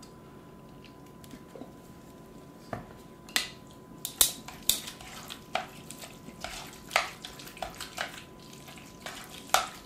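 A utensil clinking and scraping against a mixing bowl as tuna salad is stirred: irregular knocks and taps that begin about three seconds in.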